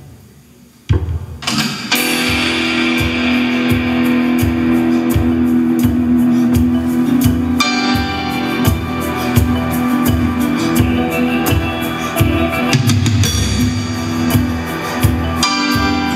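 A rock song with electric guitar and drum kit playing through a pair of DIY loaded-horn speakers with Fostex FE126En full-range drivers. It opens quietly, with a drum hit about a second in, then the full band comes in with sustained guitar chords over a steady beat.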